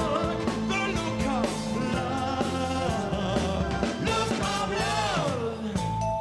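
Live pop band playing with a male lead vocal: a sung melody over a steady drum beat and bass line, with long held chords coming in near the end.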